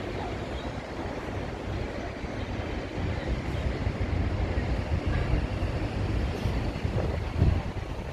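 Busy city street ambience: a steady rumble of traffic with wind on the microphone, and a few faint seagull cries over it. A low thump about seven and a half seconds in.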